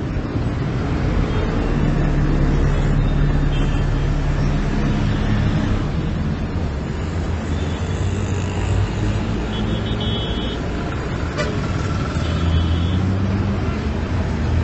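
Street traffic: vehicle engines running with a steady low hum, and several brief horn toots.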